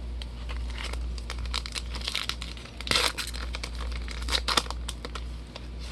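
Trading-card pack wrapper being torn open and crinkled: a run of crackles and rips, loudest about three seconds in.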